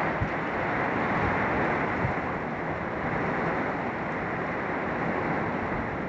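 Heavy rain pouring down in a wind storm, a steady rushing noise, with wind buffeting the phone's microphone and two brief low bumps, one near the start and one about two seconds in.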